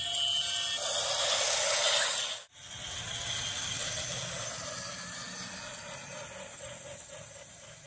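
Toy steam locomotive running along plastic track: a steady mechanical whir and hiss. The sound breaks off for an instant about two and a half seconds in, then carries on and slowly fades.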